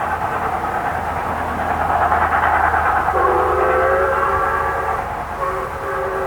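Steam locomotive 520 running with a steady rush of steam and train noise; about three seconds in its steam whistle blows a long multi-note blast, breaks off briefly near the end and sounds again.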